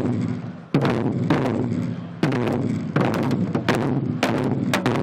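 Korean barrel drums (buk) struck by a drum ensemble: separate heavy strokes, each ringing on, at first with pauses of about a second, then coming closer together in the second half.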